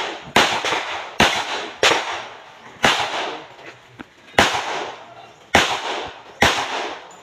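Pistol gunshots as a shooter engages a row of targets in a practical-shooting stage: about seven shots at uneven spacing, roughly one a second, each followed by a short echo.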